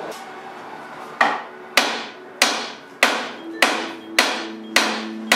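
Hammer blows on steel at the front steering knuckle of a 1999 Jeep Cherokee during a front suspension rebuild: eight sharp metallic strikes, each ringing briefly, at an even pace of about one every 0.6 s, starting about a second in.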